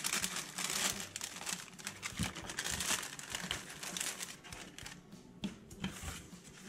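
Paper packaging crinkling and rustling as the contents are pulled out of a card-kit box; dense, irregular crackles in the first half that thin out toward the end.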